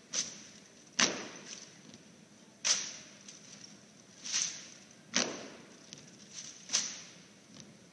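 Marine silent rifle drill: about six crisp, sharp smacks of rifles being handled and struck, irregularly spaced, each with a short echo in the gymnasium. No commands are spoken.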